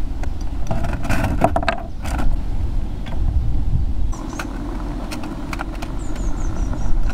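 Metal clinks and knocks of a camping gas stove and its folding metal windshield being handled and set down on a wooden picnic table, with a short noisy burst about a second in. A steady low rumble runs underneath.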